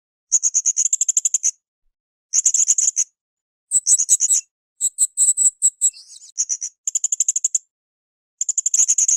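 Blue-crowned hanging parrot (srindit) calling: short bursts of rapid, shrill, high-pitched chattering notes, each under a second long, repeated about seven times with gaps of silence between.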